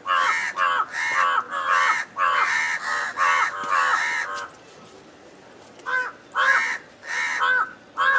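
Crows cawing: a quick run of harsh caws, two or three a second, for about four seconds, a pause of a second or so, then several more caws.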